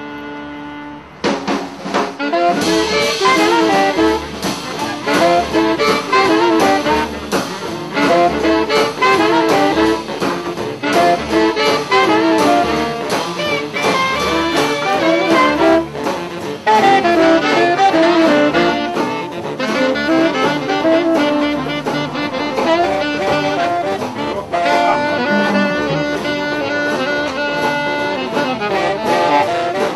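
Jazz music with saxophone and brass over a steady, pulsing bass line. It comes in loudly about a second in, right after a held note.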